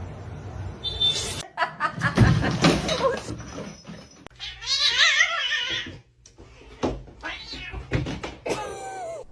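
Cats meowing and yowling: a long, wavering yowl about midway and a short falling meow near the end, with other noisy sounds between abrupt cuts.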